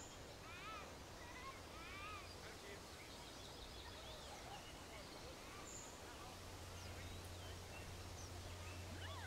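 Outdoor nature ambience of birds calling and chirping, many short calls scattered through it, over a faint steady low hum.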